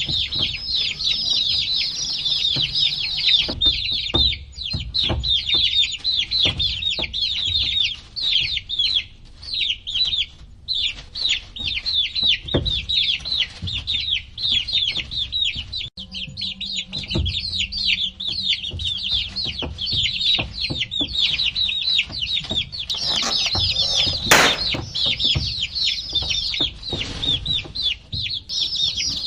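A flock of baby chicks peeping continuously: many rapid, high chirps, each falling in pitch and overlapping one another. Scattered taps and knocks sound through it, with one louder knock about five seconds before the end, and a faint low hum comes in about halfway through.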